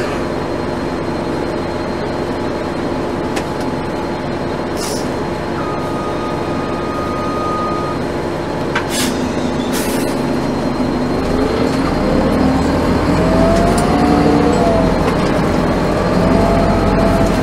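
Inside a 1996 NovaBUS RTS bus: its Detroit Diesel Series 50 engine runs steadily, two short hisses of air sound about nine and ten seconds in, then the engine grows louder and climbs in pitch as the bus pulls away, dropping back as the Allison automatic transmission shifts up and climbing again.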